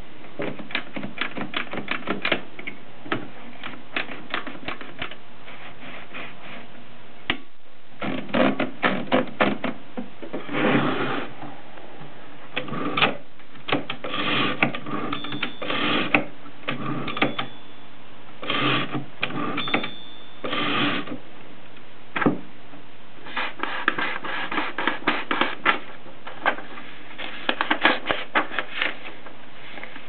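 Antique Mercedes Prima manual typewriter being handled as paper is fed in: runs of rapid clicks and short rattles from the platen ratchet and carriage, broken by brief pauses.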